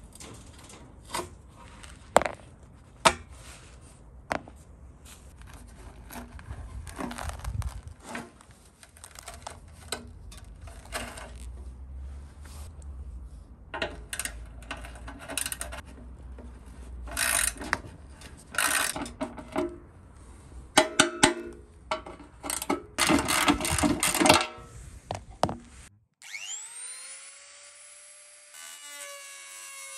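Scraping and irregular metal clicks and clanks of hand tools, a scraper and a wrench, working the rusty emblem plate and bolts of a steel motorcycle fuel tank. Near the end a small electric rotary tool with a cutting disc spins up with a rising whine and then runs steadily.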